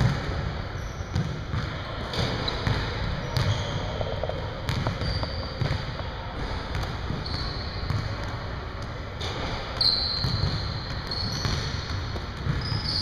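Basketball bouncing repeatedly on a hardwood gym floor during a shooting drill, with sneakers squeaking on the court now and then.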